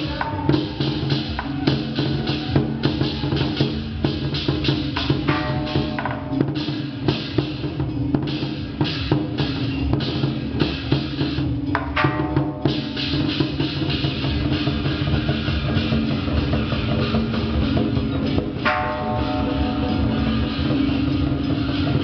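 Lion dance percussion: a drum beaten with cymbals and gongs in quick, regular strikes, loudest and most distinct through the first half, then merging into a denser, steadier wash of sound over a continuous pitched music bed.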